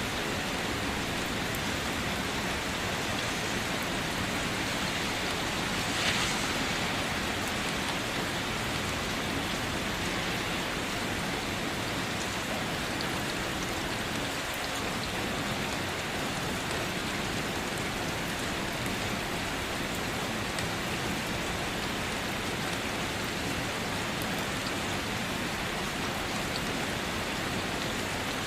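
Steady rain falling on a car, an even hiss of drops, with one brief louder burst about six seconds in.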